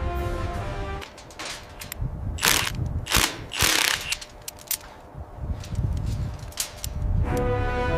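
Mechanical clicking and ratcheting, broken by several short hissing bursts, the loudest about two and a half to four seconds in. Background music plays for the first second and comes back near the end.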